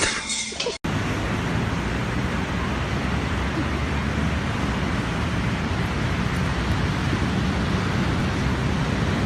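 A brief sound cut off suddenly under a second in, then a steady, loud rushing noise with no distinct tones.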